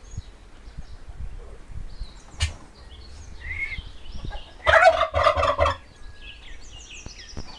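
A male turkey gobbling: one loud, rapid rattling gobble lasting about a second, about five seconds in, with fainter short calls before and after it.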